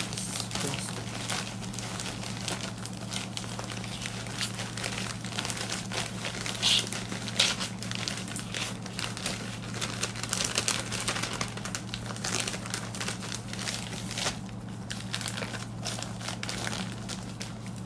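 Plastic packaging crinkling and rustling as a bagged garment and a plastic courier mailer are handled, folded and pressed flat, with a few sharper crackles about seven seconds in.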